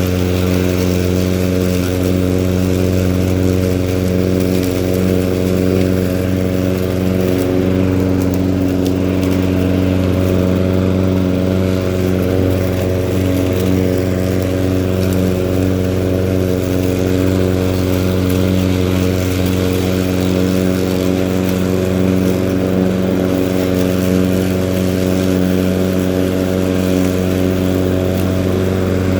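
Husqvarna LC151 walk-behind lawn mower's petrol engine running steadily at constant speed while cutting tall, thick grass.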